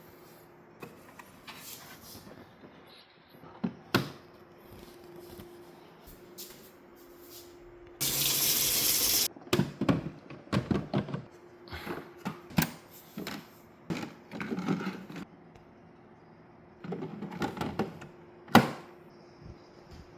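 Packaging being handled: a loud ripping sound lasting about a second, then bursts of rustling and crinkling with knocks, and a sharp click near the end.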